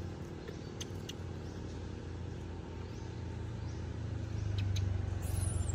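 A motor vehicle's engine running, a low hum that grows steadily louder from about halfway through, with a few short high clicks over it.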